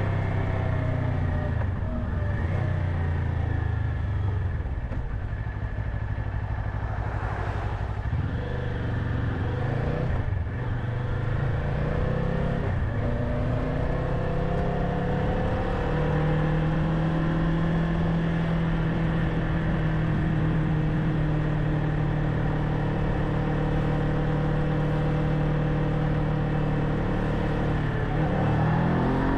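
Kawasaki Ninja 500's parallel-twin engine under way. Its pitch falls at the start as the bike slows and stays low for several seconds, then climbs to a steady cruise for most of the rest, and rises again as it accelerates at the very end.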